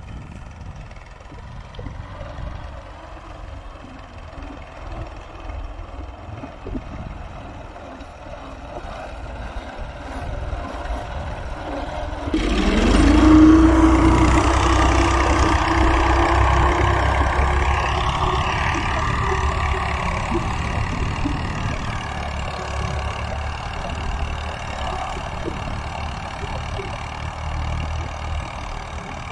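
Al-Ghazi tractor's diesel engine running under load while pulling a five-tine plough, distant at first. About twelve seconds in it becomes suddenly louder and nearer, its pitch rising briefly and then holding steady, before easing off gradually.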